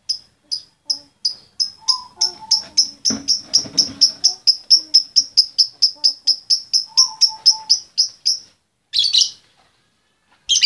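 Female lovebird calling: a long run of short, sharp, high chirps that speeds up from about two to about five a second and stops about eight and a half seconds in. Two louder, harsher squawks follow, one about a second later and one at the very end.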